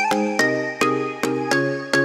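Background music: a bright, rhythmic tune of short struck or plucked chords, about two or three a second.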